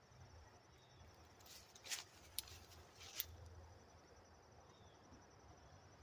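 Near silence, with a few faint scattered clicks and taps and a couple of faint high chirps.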